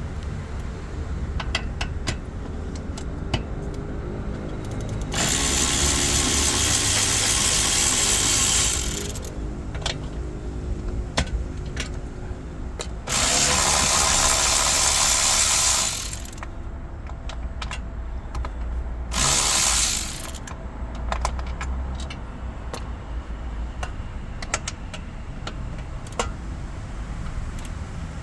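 Hand tools and parts being handled while dismantling for a fuel pump replacement: scattered clicks and knocks, including ratchet-like clicking, over a low hum. Three loud stretches of rushing noise come in: a long one about five seconds in, another around the middle, and a short one near two-thirds of the way through.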